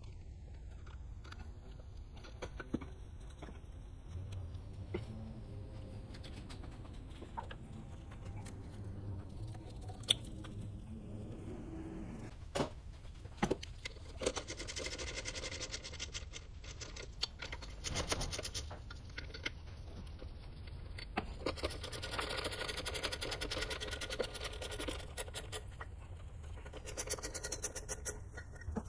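Ratchet wrench clicking in fast runs, with two longer stretches past the middle, among scattered clinks of metal tools on engine fittings.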